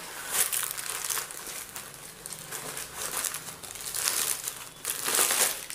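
Paper stuffing crinkling and rustling as it is pulled out of a handbag, in several bursts, loudest near the end.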